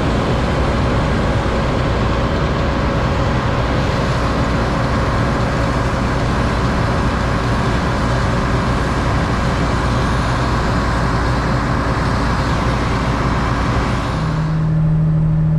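Harvest machinery running steadily, a loud rushing noise with a low engine drone under it. About 14 s in the rushing high end drops away and a steady low hum takes over.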